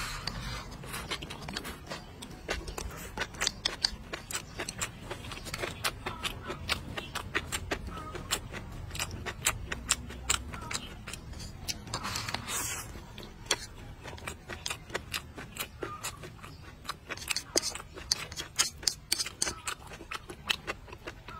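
Close-miked eating: chopsticks scooping rice and a stir-fry from a bowl and steady chewing, with many sharp clicks and smacks of the mouth. A louder rustling slurp comes as a fresh mouthful is taken about twelve seconds in.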